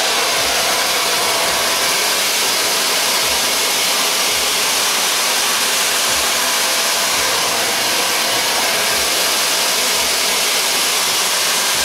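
Hair dryer with a flat concentrator nozzle blowing hot air at full fan speed, a loud steady rushing noise, with an uneven low rumble underneath.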